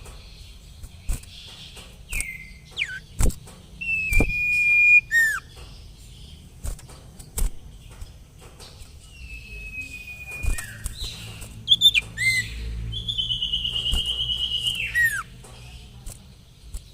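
Common iora calling: long, drawn-out whistles held on one pitch, several ending in a quick downward slur. A fast trilled note follows about thirteen seconds in. Sharp clicks are scattered among the calls.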